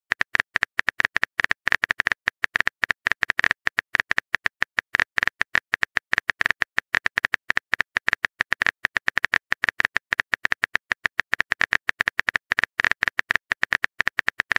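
Phone keyboard typing sound effect: a rapid, uneven run of short clicks as a text message is typed out.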